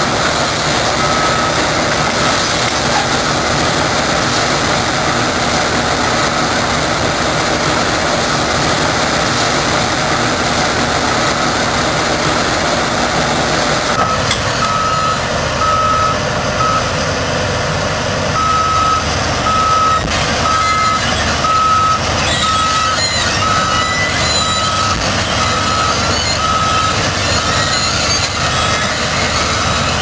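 Large tracked mining drill rig crawling along, its diesel engine running steadily under a travel alarm that beeps about once a second, more clearly in the second half.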